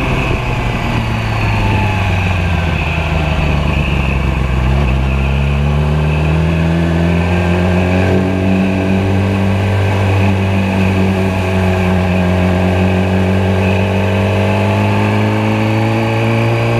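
Yamaha R6 sportbike's inline-four engine under way from the rider's position: the engine note climbs in pitch about five seconds in as the bike accelerates, then holds steady and rises a little again near the end.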